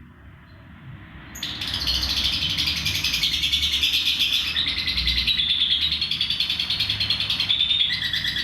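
Lovebird 'ngekek': a long, unbroken run of rapid, shrill chattering calls that starts about a second and a half in.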